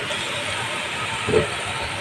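Steady hiss from cooking on a lit gas stove, with one short knock just past the middle.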